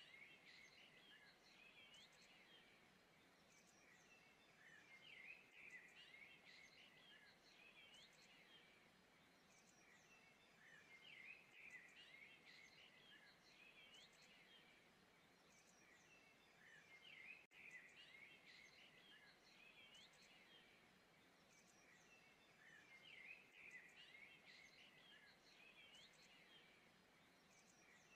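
Faint birdsong: chirps and short rising whistles in brief phrases every few seconds.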